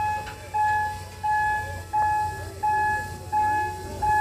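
Electronic warning chime of a railway turntable sounding while the turntable rotates: a single ringing tone struck about every 0.7 seconds, each fading quickly, over a low steady hum.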